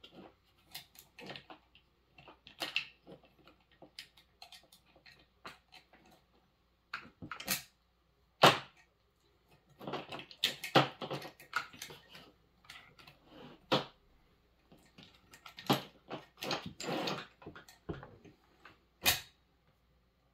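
Irregular metallic clicks, knocks and short rattles of a chainsaw's bar and chain being handled and fitted, with one sharp knock about eight seconds in.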